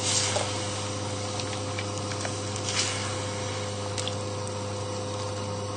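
Stock simmering in an enamelled cast-iron casserole pot while a wooden spoon stirs through the beef and vegetables, with a light knock about three seconds in. A steady low hum runs underneath.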